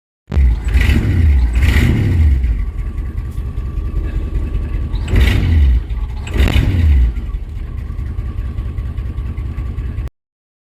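1953 Chevrolet Bel Air engine idling and revved four times by blips of the throttle: twice in the first two seconds, then twice more about five and six and a half seconds in. It settles back to a steady idle each time. The throttle is being worked through a newly replaced throttle cable.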